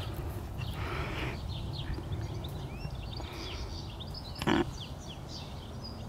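Low wind rumble on the microphone with small birds chirping faintly throughout, and a short thump about four and a half seconds in.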